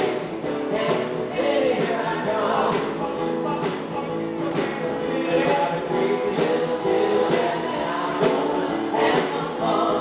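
Live band music: a song with several voices singing together over electric guitar, keyboard and drums, with a steady beat.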